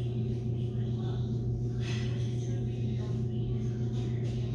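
A steady low hum runs throughout at an even level, with faint distant voices now and then.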